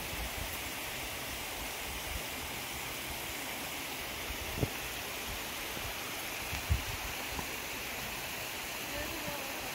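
Steady rush of water from a small creek waterfall on low flow after no rain. Two brief low thumps about four and a half and six and a half seconds in.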